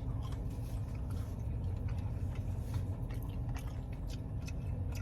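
Mouth sounds of chewing a fried garlic cheddar bite: soft, scattered wet clicks of the jaw and breading, over a steady low hum.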